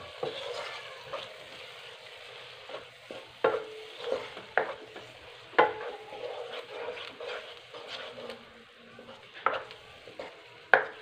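A wooden spatula stirring and scraping a thick onion-tomato spice masala in a nonstick kadai, over a steady sizzle of frying. Several sharp, irregular scrapes of the spatula against the pan stand out.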